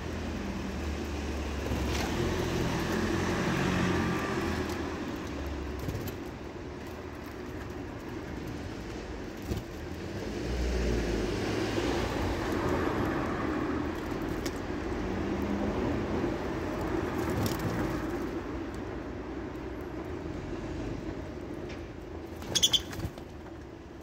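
Road traffic going past: a steady rushing hiss with low rumble that swells and fades twice as vehicles pass. A brief cluster of sharp high clicks sounds near the end.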